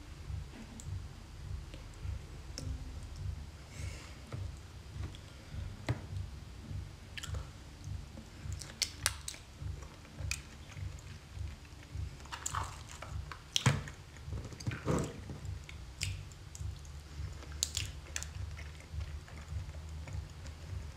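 Close-miked chewing of raw seafood: a steady rhythm of jaw movements with scattered sharp, wet clicks now and then.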